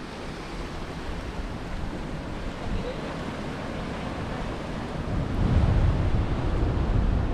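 Sea surf washing against a rocky reef shoreline, with wind buffeting the microphone, heavier from about five and a half seconds in.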